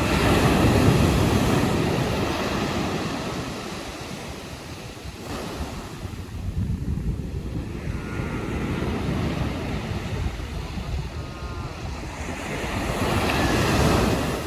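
Sea waves breaking on a beach, the surf swelling loud at the start, ebbing, then building again near the end, with wind buffeting the microphone.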